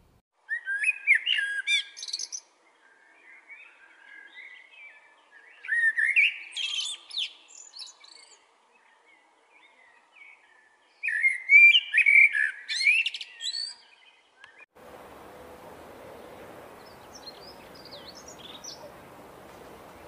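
Common blackbird singing: three phrases of fluty warbling, each ending in a high squeaky twitter, with quieter notes between them. About fifteen seconds in, this gives way to a steady hiss with a faint, high warble from a small bird.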